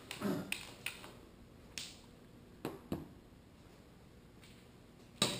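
Old hand tools being handled and set down: a handful of sharp clicks and knocks, about six in all, the loudest near the end.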